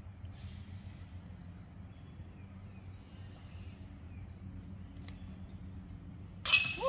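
Quiet woodland background with a few faint bird chirps, then near the end a sudden sharp hit with a ringing tail.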